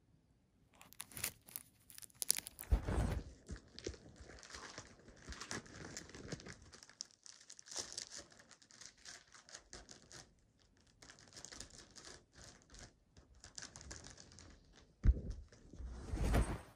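Clear plastic shrink-wrap being torn and peeled off a CD jewel case: irregular crinkling and crackling of cellophane. A couple of heavier handling thumps come about three seconds in and again near the end.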